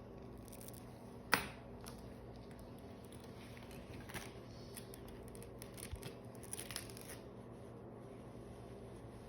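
Suturing instruments and packaging being handled: one sharp click about a second in, then scattered softer clicks and rustling between about four and seven seconds in.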